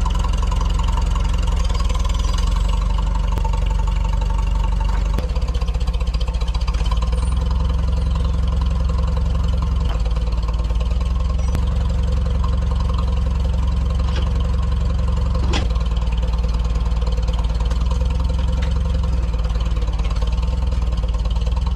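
Tractor engine running steadily, loud and close, with a couple of brief knocks in the second half.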